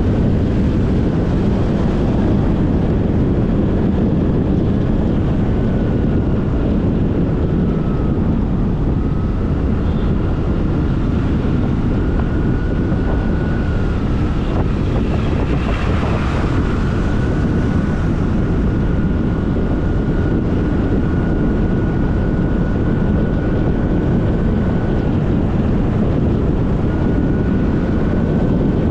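Steady wind rush and road noise from a scooter riding at speed, buffeting the action camera's microphone, with a thin steady whine running through it. A brief swell of noise rises and fades about halfway through.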